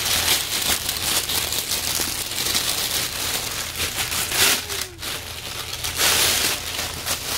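Plastic mail bag crinkling loudly as it is handled and opened.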